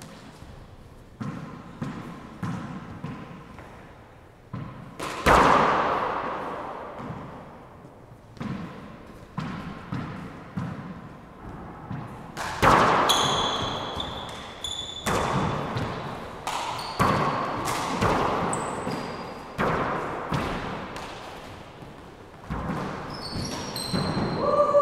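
Rubber handball smacking off the floor, walls and gloved hands in an enclosed four-wall court, each hit echoing and dying away. Hits are spaced apart at first while the server bounces the ball, then come quickly in a rally from about halfway, with sneakers squeaking on the hardwood floor.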